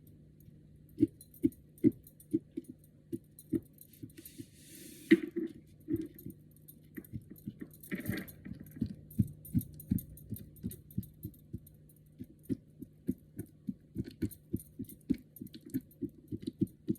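Repeated soft, dull taps of a fork poking holes in raw catfish fillets, the tines knocking the dish beneath, irregular at about two to three a second over a faint steady hum.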